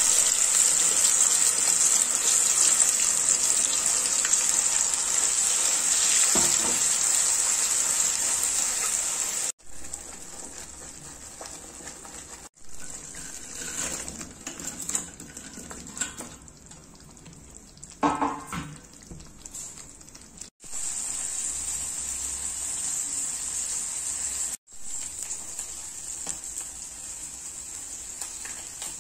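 Masala paste sizzling loudly in hot oil in a frying pan, a dense, steady high hiss. After a sudden break it turns quieter, with a few short knocks and splashes in the middle as fried tofu cubes are tipped into the thick gravy. The sizzling restarts and breaks off again several times.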